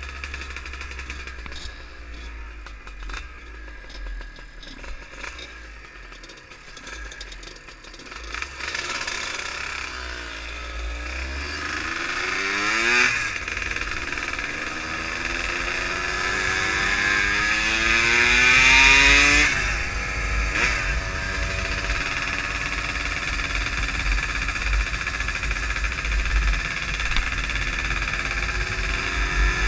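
Two-stroke Yamaha DT trail motorcycle being ridden. About ten seconds in the revs climb, break off, then climb again in a long pull that is loudest just before twenty seconds, drop back and settle into steady running. Wind rumbles on the microphone throughout.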